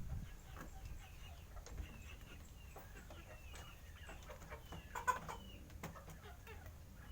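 Animals at a feeding spot: clucking and short high chirps, scattered small clicks, and one louder pitched call about five seconds in.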